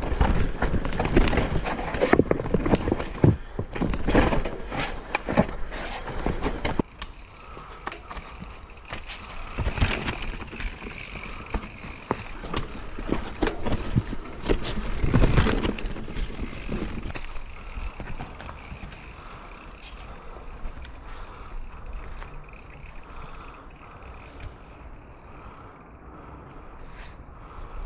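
Mountain bike clattering down a steep, rocky trail: chain slap, a rattling frame and suspension, and tyres knocking over rocks and roots. The rattling is densest for the first seven seconds and bursts again around ten and fifteen seconds in, then eases to quieter rolling noise with only occasional knocks.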